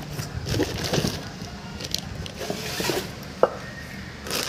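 Plastic wrap crinkling and cardboard rustling as a plastic-wrapped stainless steel pressure cooker is lifted out of its box. There is a single sharp knock about three and a half seconds in as it is set down on the floor.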